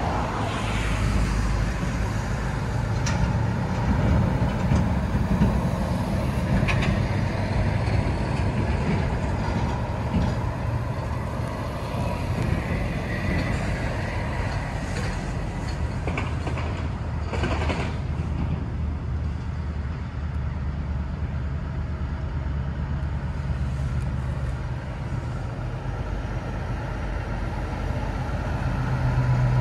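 Heavy diesel lorry and port traffic running, a steady low rumble, with a brief hiss a little past the middle. Near the end a heavy lorry's engine grows louder as it approaches.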